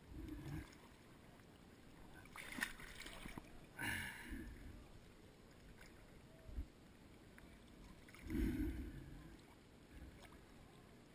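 Water sloshing and lapping against an action camera's waterproof housing as it bobs at the surface, in a few separate sloshes, the loudest about eight seconds in.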